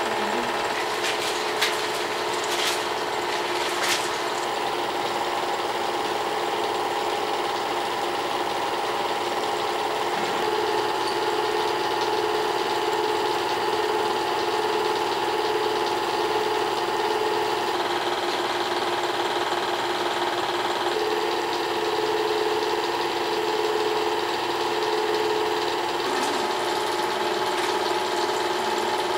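Home-movie film projector running steadily, with a motor hum and film-transport whir holding a few fixed tones. A few sharp clicks come in the first few seconds.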